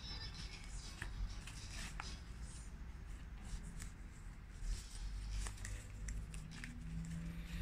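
Stiff printed sample cards on a metal ring being handled and fanned through by hand: rustling with scattered light clicks and taps of card against card.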